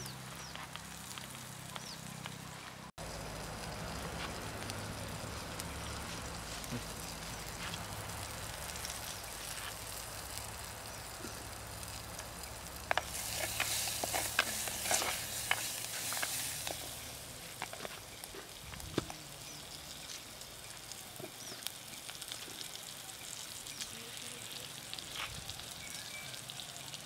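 Onions and greens sizzling in a pot over an open wood fire, a steady hiss. From about 13 to 17 s a wooden spoon stirs them, adding a louder stretch of scraping and clicking.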